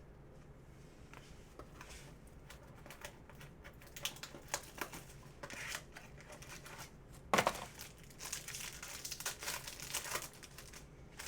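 Plastic trading-card pack wrapper crinkling and tearing as it is opened and handled. It is quiet for the first few seconds, with one loud sharp crackle about seven seconds in and then a stretch of dense crinkling.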